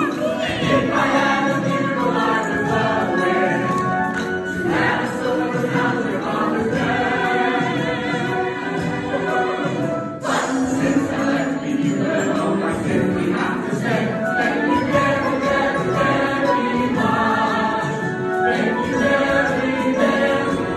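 Stage-musical cast singing a lively number together as a chorus over musical accompaniment, with an abrupt jump to another part of the song about halfway through.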